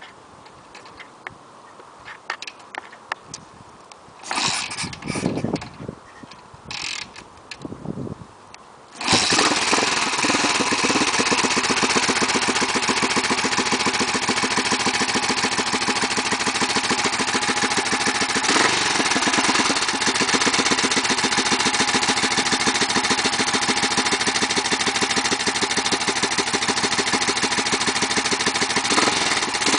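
BSA B50 single-cylinder four-stroke motorcycle engine: a few short knocks, then the engine catches about nine seconds in and keeps running steadily after seven months standing, starting without trouble.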